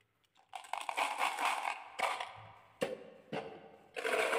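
Glass marbles clattering inside a plastic toy pot as it is handled, with a few sharp separate knocks, then a dense rush of clatter near the end as the pot is tipped to pour them out.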